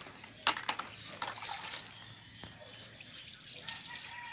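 Water poured from a small cup onto the soil around a seedling, trickling and splashing into the dirt, with a sharp knock about half a second in.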